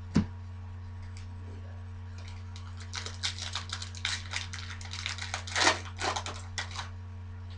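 A single thump just after the start, then a couple of seconds later a trading-card pack wrapper crinkling and tearing in a fast, crackly run, with a steady low electrical hum underneath.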